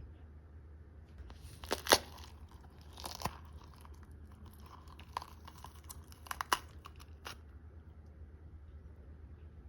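Crinkling, crunching handling noises in two short clusters of crackles, the loudest a sharp crack about two seconds in, over a low steady hum.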